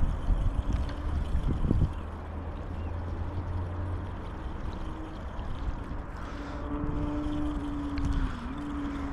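A motorboat engine running on the water: a low rumble in the first few seconds, then a steady hum from about six seconds in that dips briefly in pitch near the end.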